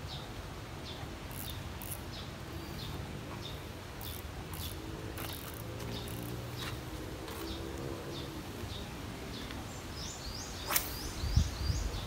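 Wind rumbling on the microphone, with a bird chirping short high notes over and over. Near the end a quick run of falling chirps, a sharp click and a few low thumps.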